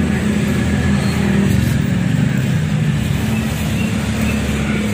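Steady low rumble of motor vehicle traffic.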